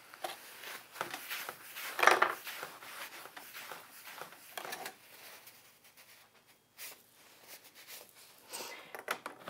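Paper towel rubbing and wiping wet paint off a painting palette in irregular back-and-forth strokes, with one louder stroke about two seconds in.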